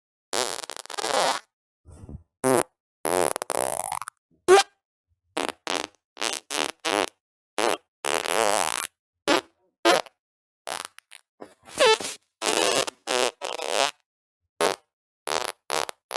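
A rapid string of about twenty fart sounds, each cut cleanly from the next. Short sharp pops alternate with longer buzzing ones up to about a second long whose pitch wobbles.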